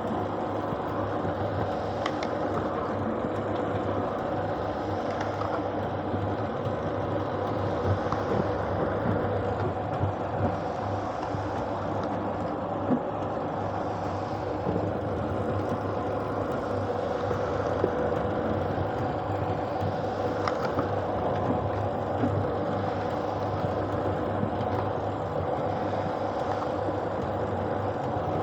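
Paving block press machine running: a steady mechanical hum with a few sharp clanks scattered through.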